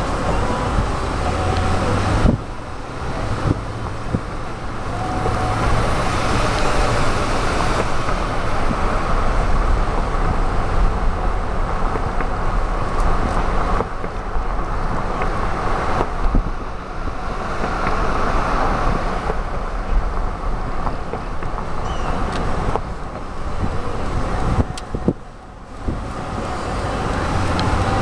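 Steady engine and road noise of a car being driven, heard from inside the car, with a brief dip in loudness near the end.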